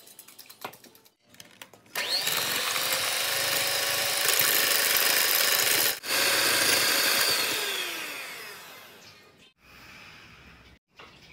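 Electric hand mixer beating eggs and sugar into batter in a glass bowl. It starts suddenly about two seconds in, drops out for an instant around six seconds, then falls in pitch and fades as the motor winds down.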